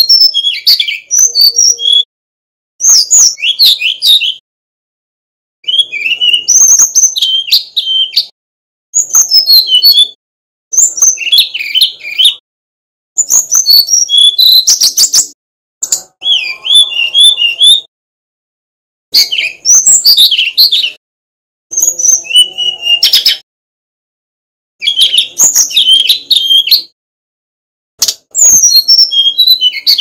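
Male brown-chested jungle flycatcher (sikatan rimba dada coklat) singing: about a dozen short phrases of quick, clear whistled notes, each one to two seconds long, with brief pauses between them.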